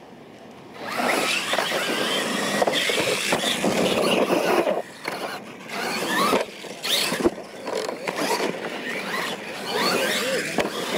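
Losi LMT radio-controlled monster trucks racing on dirt. Their brushless electric motors and gear drives start whining about a second in and rise and fall with the throttle, over tyre noise, with a few sharp knocks along the way.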